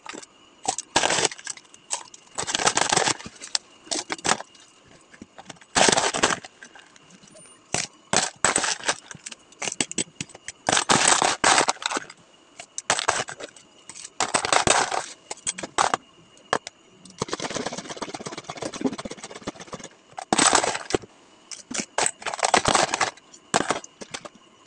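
Crushed ice and hard plastic cups and containers clattering and scraping as iced drinks are assembled by hand, in a series of short irregular bursts.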